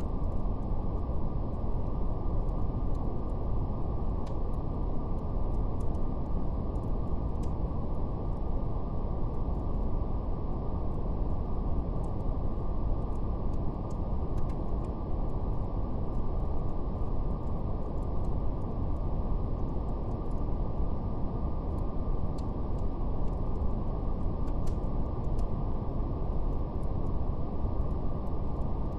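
Steady brown noise, a deep even rumble-like hiss with nothing above the low and middle range, with a faint crackle of a wood fire: scattered small irregular pops.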